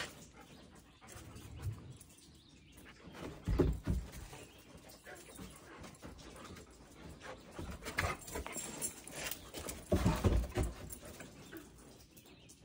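Alaskan Malamute puppies making small dog sounds, with scattered short clicks and two louder low thumps, about three and a half and ten seconds in.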